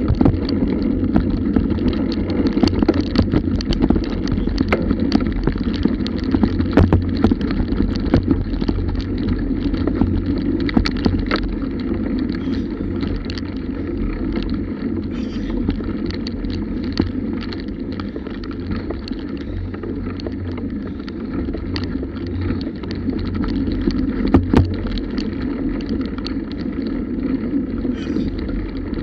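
Bicycle rolling along a rough dirt trail: a steady low rumble of tyres on the ground, broken by frequent sharp rattles and knocks as it goes over bumps.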